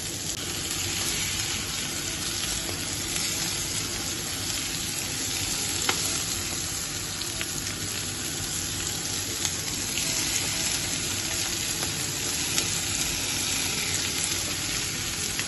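Whole shell-on shrimp sizzling steadily on a hot, oiled ridged grill pan over high heat, with a few small pops of spitting oil.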